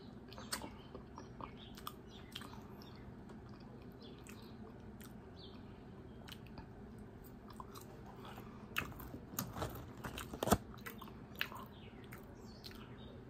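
A person chewing fries close to the microphone: faint crunches and wet mouth clicks, with a louder run of smacks and crunches about nine to eleven seconds in.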